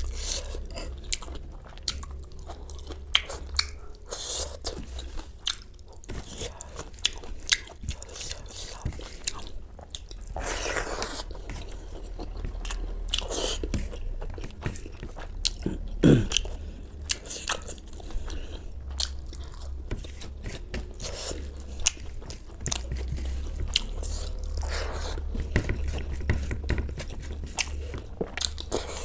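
Close-miked mouth sounds of someone eating: crunchy bites and chewing, with many irregular sharp crunches throughout.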